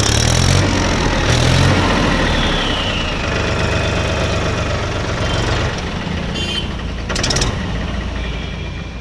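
Trakstar 540 tractor's diesel engine running steadily just after starting, louder over the first two seconds. A brief sharp clatter comes about seven seconds in.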